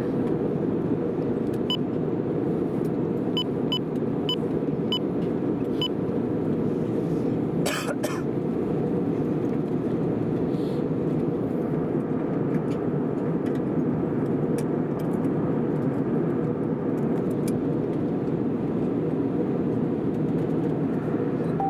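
Steady cabin noise of an Airbus A320 in descent: engine and airflow noise heard inside the cabin. A faint ticking runs for a few seconds, and there is a brief click near the middle.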